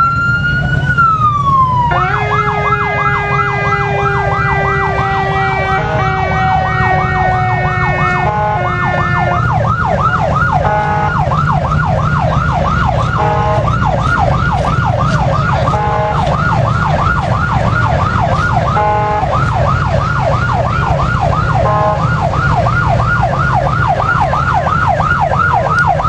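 Police car sirens: a wail rising and falling in pitch at the start, then a rapid yelp sweeping up and down about three to four times a second. For the first several seconds of the yelp a second, steadier siren tone slowly drops in pitch, over a steady low rumble.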